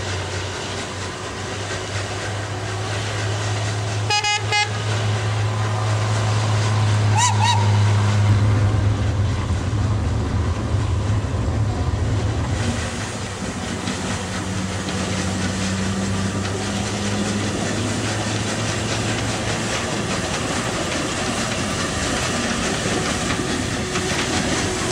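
Steam locomotive B25 03, a four-cylinder rack-and-adhesion tank engine built in Esslingen in 1902, running with its train. A short whistle toot comes about four seconds in. From about halfway through, the train's running noise is heard from inside the coach.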